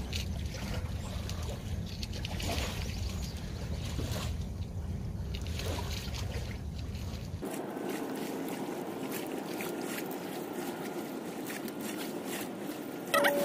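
Wind rumbling on the microphone with water lapping, and faint scraping and cutting of a knife working under a gar's bony armor. The background changes abruptly about seven and a half seconds in, when the low rumble drops away.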